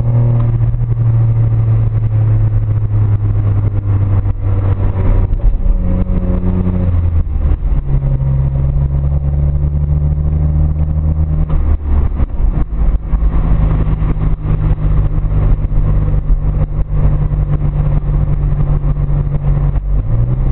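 Smart ForTwo Brabus (450) three-cylinder turbo engine with a straight-through exhaust, heard from inside the cabin while driving at a steady town speed. It drones loudly, its pitch stepping up and down several times as throttle and gears change.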